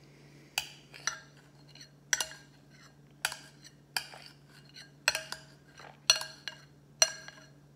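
Eating utensil clinking and scraping against a bowl while scooping durian, a series of sharp ringing clinks about once a second.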